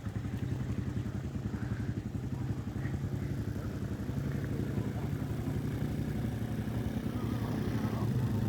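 Small ATV engine running at low speed, a steady low putter that grows slightly louder in the second half.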